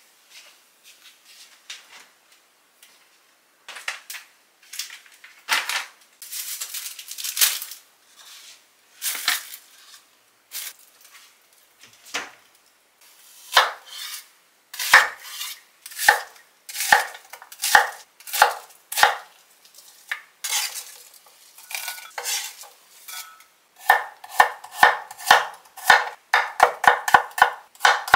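Kitchen knife cutting on a wooden cutting board: scattered knocks and clatter of kitchenware being handled, then single cuts through an onion from about halfway, turning into quick even strokes, about three or four a second, as garlic cloves are sliced near the end.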